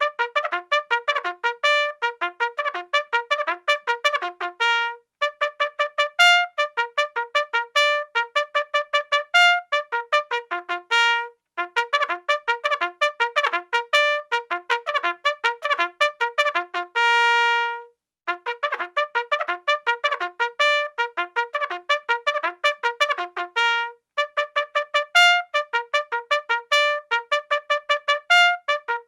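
Bugle playing a fast call of rapid tongued notes, in phrases a few seconds long with brief pauses between them. One long held note comes about seventeen seconds in.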